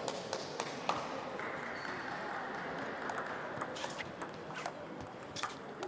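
Table tennis balls clicking off tables and bats at irregular intervals, several overlapping rallies, over a steady background murmur.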